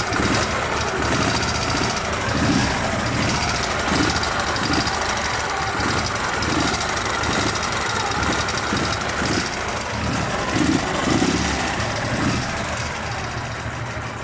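Dnepr MT-11 motorcycle's flat-twin engine idling steadily after a cylinder-head rebuild. The knock from the head is gone. Only a light valve clatter remains, from slightly wide valve clearances that should settle as the engine beds in.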